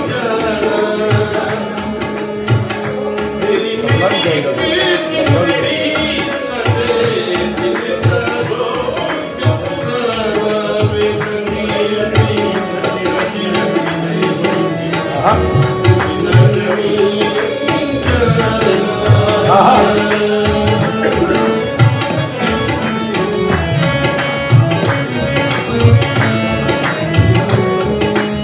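Tabla and harmonium playing together in a Punjabi song accompaniment: the tabla's strokes keep a steady rhythm under the harmonium's reedy melody.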